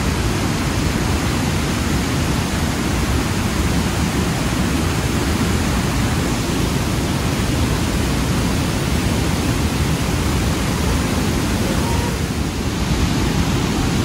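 Waterfall inside a mountain: a steady, loud rush of falling water.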